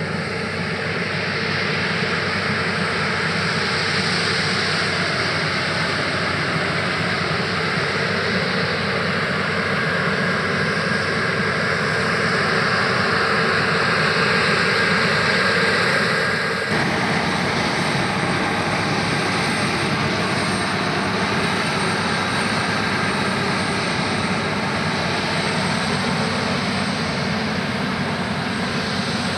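Claas Lexion 570 TerraTrac combine harvester running under load while harvesting rice: a steady engine and threshing-machinery drone with a constant high whine. Its tone shifts abruptly about two-thirds of the way through.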